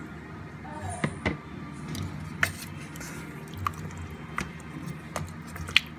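Wooden spoon stirring beef chunks in thick sauce in a slow cooker crock: wet squishing, with several sharp knocks and clicks of the spoon against the crock.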